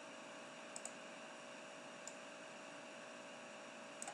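Computer mouse clicks: a quick double click just under a second in, a single click about two seconds in, and another double click near the end, over a faint steady hiss and hum.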